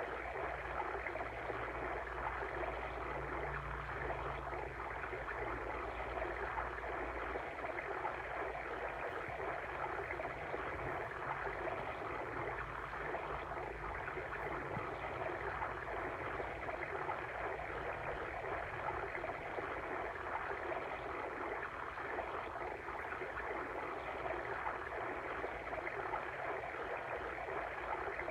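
Steady water stream ambience: a continuous babble of flowing water over rocks.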